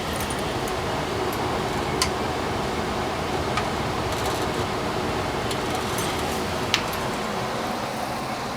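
Variable-speed indoor blower of a Dave Lennox Signature 80% gas furnace running steadily with a rush of air, the fan still blowing after the burners have gone out. A few sharp ticks come about two, three and a half and seven seconds in.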